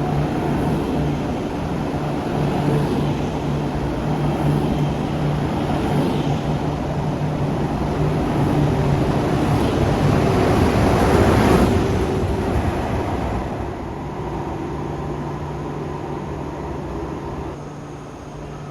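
KTX high-speed electric train pulling out of the station. Its rolling rumble and hiss build to a peak about eleven seconds in, then fade as it moves away, over a steady low hum.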